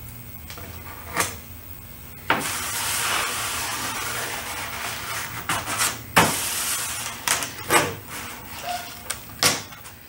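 Blue painter's tape pulled off its roll and laid along a sheet of metal wire lath: a long ripping rasp starts suddenly about two seconds in, followed by several sharp clicks and crinkles as the tape and mesh are handled.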